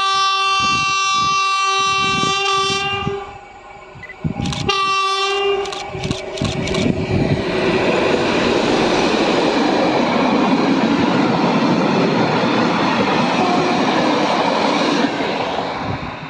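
SU45 diesel locomotive sounding its horn: one long blast of about three seconds, then a short second blast about a second and a half later, with regular wheel knocks beneath. It then passes close with its train of passenger carriages, a loud steady rumble and clatter of wheels on the rails that fades near the end.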